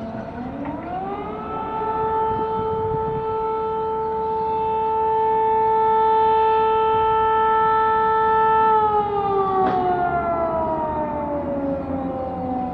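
Civil defense siren wailing: the pitch climbs over about a second, holds steady for about seven seconds, then slowly falls away over the next four seconds.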